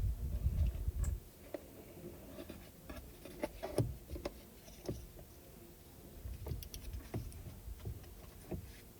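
Hands handling a loosened steering-wheel airbag module: a low rumble of handling in the first second, then scattered light plastic clicks and knocks.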